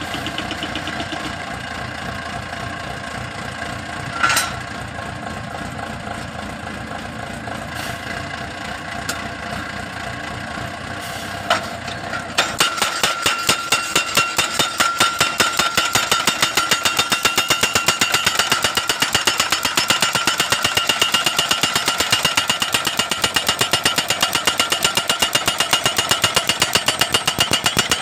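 Crash barrier post driver's engine running, with a couple of single metal clanks; about twelve seconds in its hammer starts pounding a steel guardrail post into the ground, fast even blows about four a second.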